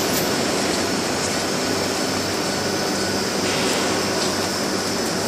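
Double-head cutting saw for uPVC and aluminium profiles running steadily: a constant mechanical whir with a low hum underneath.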